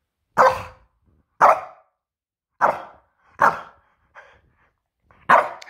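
French bulldog barking: about six short barks, roughly one a second, one near the middle fainter. The dog is barking back at its owner, refusing to settle down for bed.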